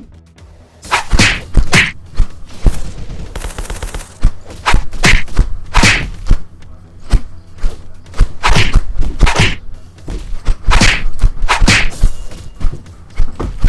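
A string of loud whacks and thumps, mostly in quick pairs or threes spaced a second or two apart, like blows landing in a scuffle.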